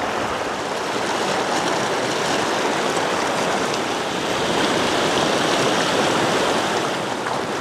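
Fast, shallow river riffles rushing over rocks: a steady rush of white water.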